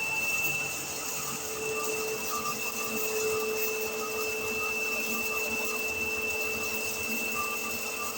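Electric disc mill for grinding maize running steadily, a continuous motor and grinder noise with a high, steady whine.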